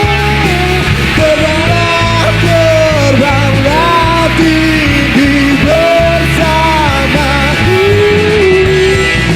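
Rock band music: a lead melody sliding and bending in pitch over electric guitar and a steady bass.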